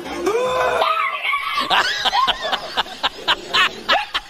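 Laughter: a rapid run of short bursts, about four a second, from about a second and a half in, after a few short rising-and-falling cries.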